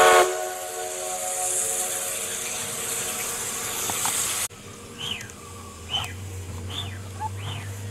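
Steam locomotive hissing while its whistle sounds a chord that fades over about three seconds; the locomotive is a 2-6-6-0 Mallet. The hiss then cuts off abruptly, and a bird calls four times with short falling whistles over a low rumble that rises near the end.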